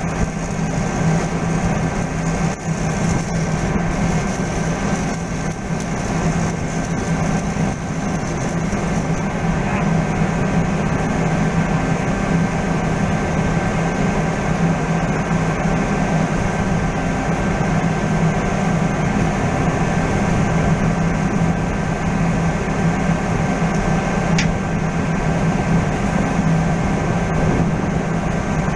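Steady machinery hum and rush, with a strong low drone and a few steady tones above it.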